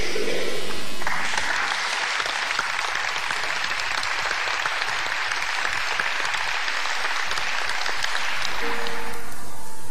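Audience applauding after a song ends about a second in. Near the end the music comes back in with held notes.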